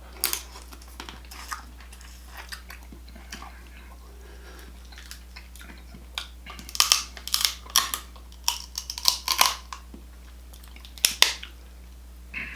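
Close-miked eating of a Cajun seafood boil: wet chewing and sharp crunching and crackling, sparse at first, then a dense run of crackles about six seconds in and another sharp pair near eleven seconds.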